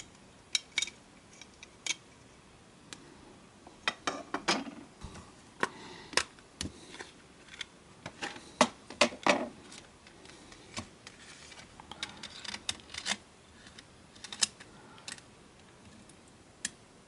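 Small plastic and metal casing parts of a Sony TCD-D3 DAT Walkman clicking and scraping as they are worked loose with a small screwdriver and lifted off by hand: irregular sharp clicks with short scrapes, the loudest cluster about halfway through.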